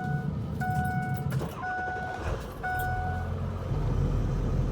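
Straight-piped exhaust of a 2002 dually pickup idling just after a cold start, a steady low rumble that grows louder and fuller about three and a half seconds in. Over it the truck's warning chime beeps about once a second, four times, then stops.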